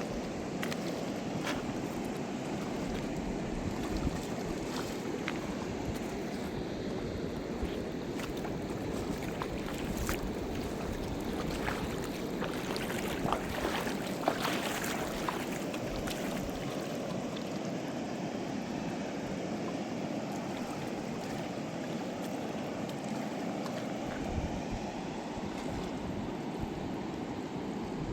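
Fast mountain river rushing steadily, with scattered sharp ticks over it, most of them about halfway through.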